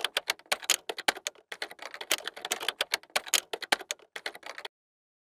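Typing sound effect: a fast, uneven run of key clicks that accompanies on-screen text being typed out, cutting off suddenly about four and a half seconds in.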